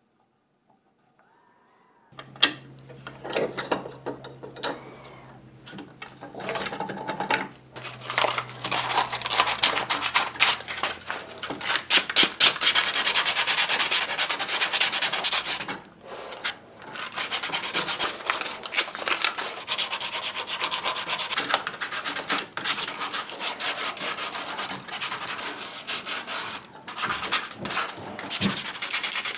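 Sandpaper rubbed by hand back and forth over a wooden part of an old hand brace: steady dry scratching of rough sanding. After two quiet seconds there are some handling clicks over a low hum, and the sanding settles into a continuous rub from about seven seconds in, with a couple of brief pauses.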